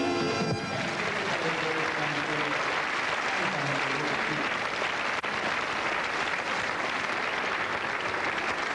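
A large audience applauding steadily. It takes over as an upbeat sung song cuts off about half a second in.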